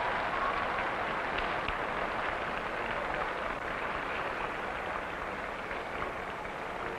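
A large outdoor crowd applauding, the clapping slowly dying down.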